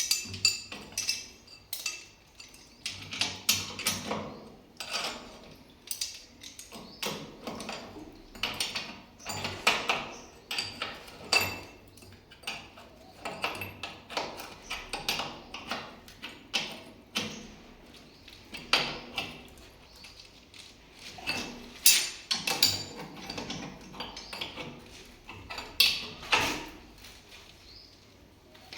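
Metal hand tools and parts of a cast iron valve clinking and knocking together during repair: irregular sharp metallic strikes, several a second, some with a short ring.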